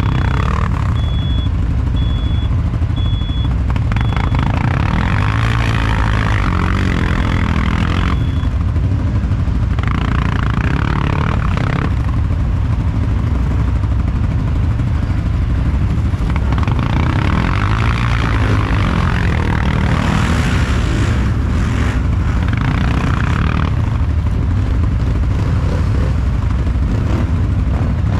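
ATV (quad bike) engine running close by, a steady low drone. Higher, louder spells of noise come and go over it.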